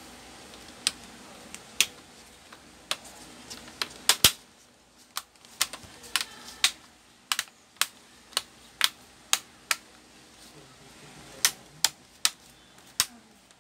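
Plastic screen bezel of an Acer Nitro 5 laptop being pressed onto the display lid, its clips snapping into place in a couple of dozen sharp clicks at an irregular pace, loudest about four seconds in, with a short pause about ten seconds in.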